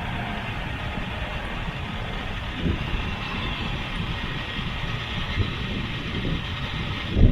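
Off-road vehicle driving over rough ground, a steady rumble of engine and bumping with a jolt partway through and a louder thump near the end.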